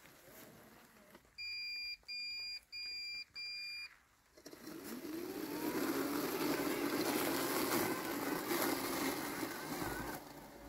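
LandXcape LX790 robotic lawn mower giving four short, even beeps, then its blade motor spins up with a rising whine and runs steadily as it cuts through tall weeds.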